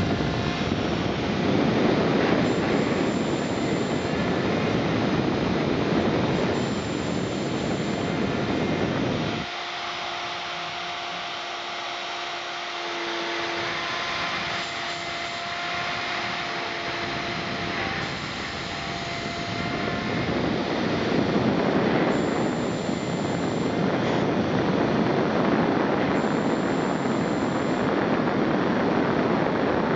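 Desktop CNC milling machine running: a steady, loud spindle whine and cutting noise. In the middle it thins for about ten seconds, leaving a steady tone, then the full noise comes back.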